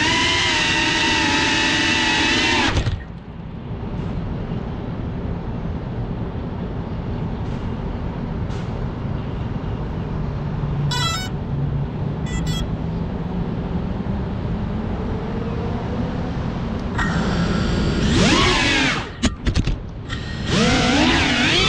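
FPV quadcopter motors whining, heard from the onboard camera. The motors stop about 3 s in, leaving a steady low outdoor rumble with two short electronic chirps near the middle. Near the end they spin up again, the whine jumping up and down in pitch as the throttle is punched.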